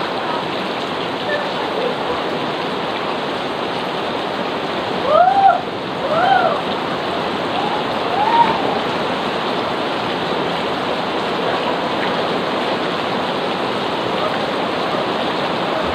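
Heavy rain pouring steadily on a swimming pool and the surrounding trees, a continuous hiss. About five seconds in come two short rising-and-falling cries, then another a couple of seconds later.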